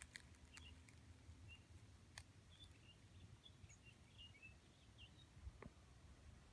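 Near silence: faint, short high chirps of small birds scattered through, with three soft sharp clicks.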